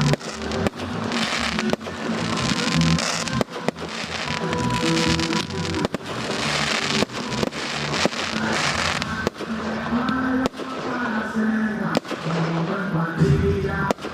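Fireworks display with repeated sharp bangs and bursts of crackling shells, set against a music soundtrack.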